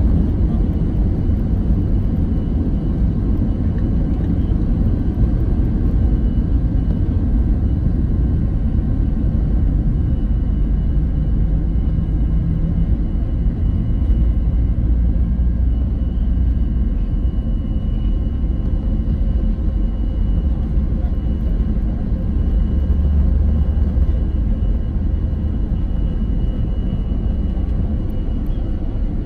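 Airbus A320 jet engines at takeoff power, heard from inside the cabin during the takeoff run and climb-out. A steady loud roar with a faint constant whine above it.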